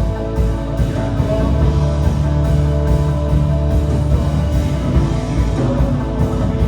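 Live worship band playing a rock-style song with electric guitar and a steady, full bass line.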